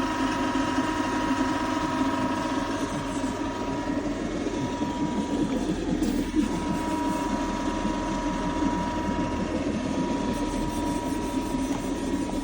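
Hydraulic excavator running, a steady engine and machinery drone with a thin, steady high tone over it. There is a single short knock about six seconds in.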